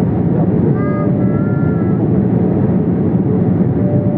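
Steady cabin noise inside a Boeing 787-8 Dreamliner in flight: the low, even rush of airflow and the engines heard through the fuselage.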